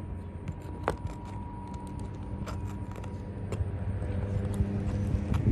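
A steady low motor or engine hum that grows slowly louder, with scattered light clicks and taps over it, one sharper click about a second in.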